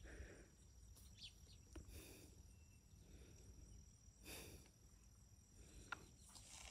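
Near silence: faint outdoor background with a few soft, brief noises.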